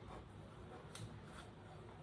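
Near silence: quiet room tone with two faint short ticks about halfway through.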